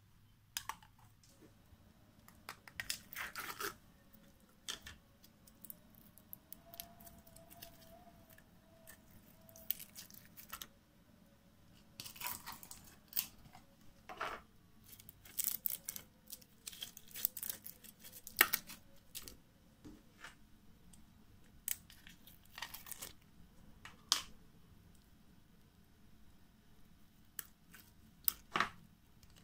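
Hands squeezing and mixing slime with beads and glitter, giving irregular crackling, popping snaps and brief tearing sounds.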